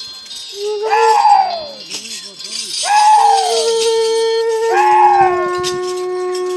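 A horn-like wind instrument sounding a falling note about every two seconds, with held steady notes between, over shaken rattling.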